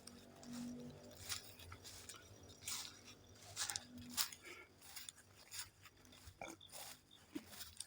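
Irregular crunching and scraping, one or two short sounds a second, from soil and seedlings being handled during planting.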